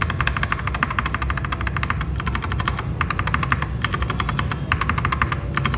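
Mechanical keyboard key with a Fantasy Virus tactile switch being pressed rapidly and repeatedly: a fast run of keystroke clacks broken by a few brief pauses.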